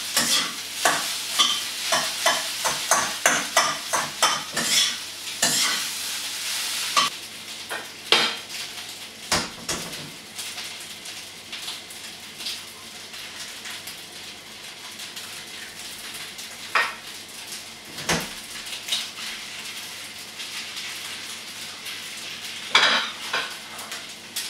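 Cold cooked rice sizzling in a hot frying pan while a metal spoon scrapes and knocks against the pan in quick, busy strokes for about the first seven seconds. After that the sizzle carries on more quietly, broken by a few single knocks as eggs are cracked over the pan.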